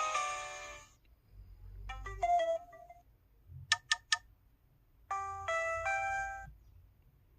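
LG KU6300 mobile phone message alert tones played one after another: the end of one electronic melody, a short chime, three quick sharp beeps, then another short melodic chime, with brief silences between.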